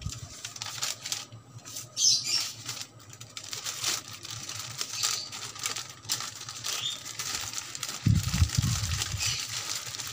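Paper receipts being handled and shuffled, with irregular rustling and crinkling, and a dull knock about eight seconds in.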